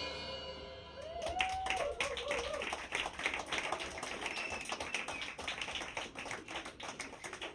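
A small audience clapping at the end of a song, fairly quietly, starting about a second in as the band's last chord dies away. Near the start of the clapping one person gives a short wavering cheer.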